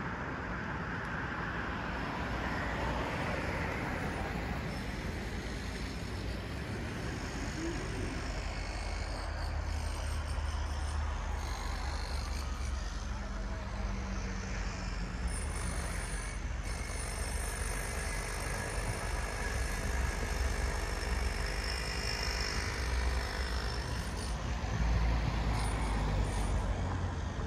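Road traffic: cars and trucks passing with a steady low engine rumble that grows a little louder in the last few seconds.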